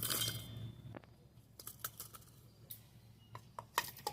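A short rustle, then scattered light clicks and taps over a low steady hum.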